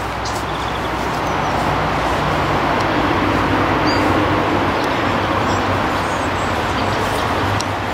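Steady rumble of road traffic, with a few faint bird chirps.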